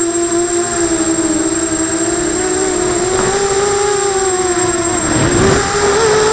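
250-size FPV quadcopter's electric motors and propellers whining, the pitch drifting up and down with throttle. About five seconds in the whine dips, with a brief rushing noise, then jumps back up as throttle is added.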